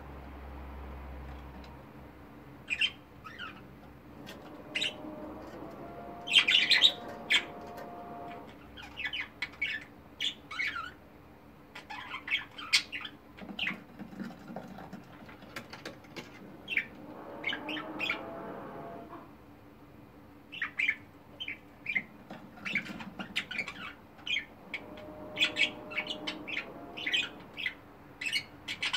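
Pet budgerigars chirping and chattering: a steady stream of short, sharp high calls with brief gaps between them, the loudest run of calls about six seconds in.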